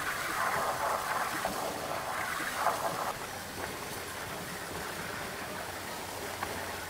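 Water gushing from an open dock fire-line outlet and splashing onto the dock decking while the line is flushed until the salt water runs out and fresh water comes through. About three seconds in the splashing stops suddenly, leaving a fainter steady outdoor hiss.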